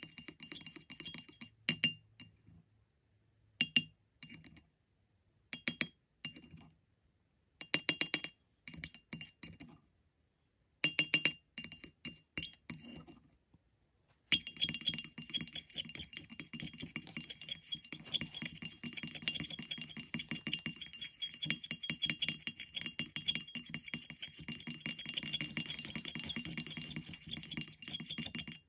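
A palette knife clinking and tapping against a glazed ceramic paint palette, in short bursts broken by dead-silent gaps. About halfway through it turns into a steady run of small clicks and scraping as thick paint is scooped and worked in the dish.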